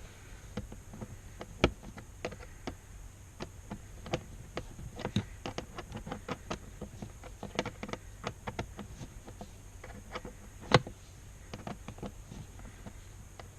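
Hand work refitting a plastic under-dash trim panel with a Torx screwdriver: irregular small clicks and taps of plastic and tool, with two sharper knocks about two seconds and eleven seconds in.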